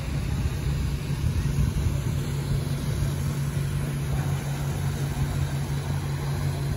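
Large fishing vessel's diesel engine running with a steady low hum, over a hiss of water.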